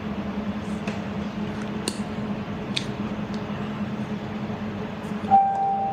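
Steady low drone of students' motorcycles arriving outside, heard from inside an office, with a few light clicks of the phone being handled. About five seconds in, a steady high tone starts and holds.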